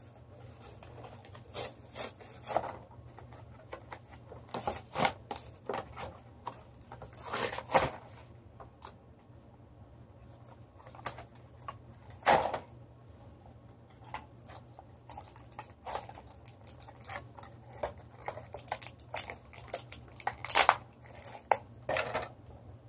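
Cardboard Hatchimals toy box and its packaging being opened by hand, with irregular tearing, crinkling and rustling.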